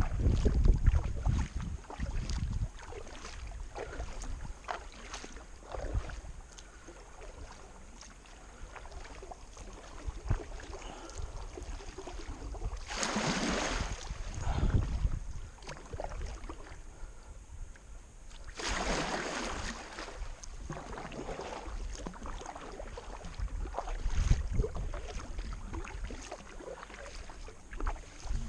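Kayak being paddled on a river: water swishing and small knocks, with two longer swishes about 13 and 19 seconds in. Wind rumbles on the microphone, heaviest in the first couple of seconds.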